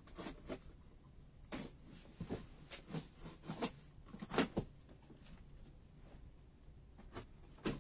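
Cardboard shipping box being handled and opened by hand: a scatter of short rustles, scrapes and light knocks of cardboard and packing.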